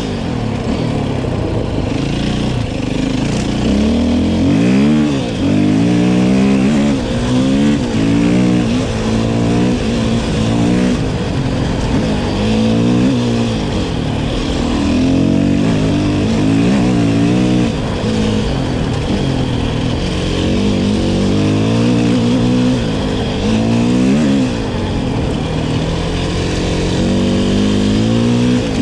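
KTM 450 EXC-F enduro motorcycle's single-cylinder four-stroke engine under hard riding, its pitch rising and dropping over and over as the throttle is opened and closed and gears change.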